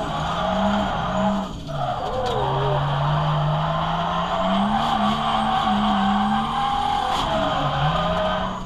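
Drift car's engine revving up and down through the corners while the tyres skid and squeal, heard from inside the cabin. The engine note dips briefly about a second and a half in.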